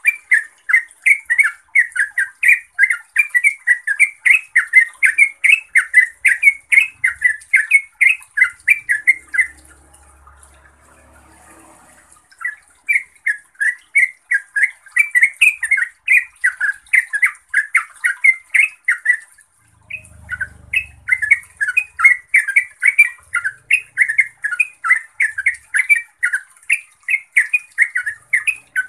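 Yellow-vented bulbul singing a long run of rapid, loud chattering notes, about three a second, pausing for a few seconds about a third of the way in and briefly again about two-thirds in.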